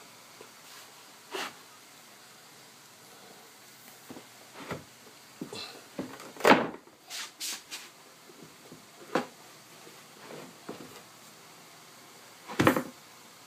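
Irregular knocks and thumps, about a dozen spread unevenly, the loudest about six and a half seconds in and another near the end, as of wooden boards being handled and set down.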